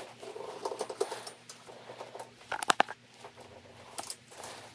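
Light clicks and small metallic rattles of a 10 mm socket on a T-handle being fitted and turned on the steering post bracket bolts of a snowmobile, with a quick cluster of sharp clicks about two and a half seconds in.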